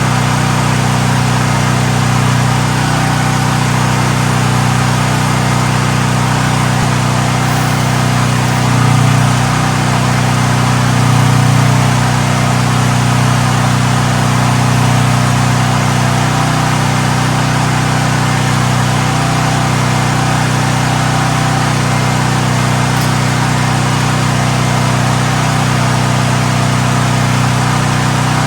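Portable generator engine running steadily, with a brief swell in level about nine seconds in and again about eleven seconds in.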